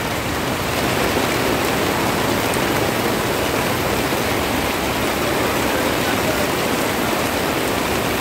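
Heavy tropical downpour falling on the umbrella overhead and the wet street, with water pouring off the umbrella's edge: a steady, dense hiss.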